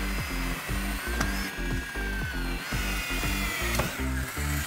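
Two cordless drills, an SDS drill set to drill-only and an impact (percussion) drill, running as they bore into a steel bar, mixed under background music with a steady beat.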